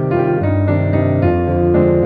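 Background piano music: held chords over low bass notes that change every half second or so.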